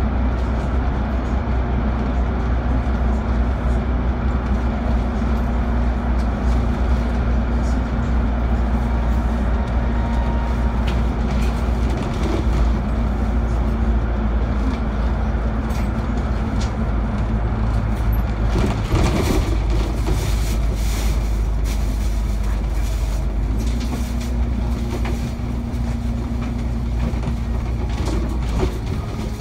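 Alexander Dennis Enviro500 MMC double-decker bus heard from inside while cruising: a steady low engine drone with tyre and road noise. About two-thirds through, the noise changes and short rattles and clicks appear as the bus leaves the tunnel.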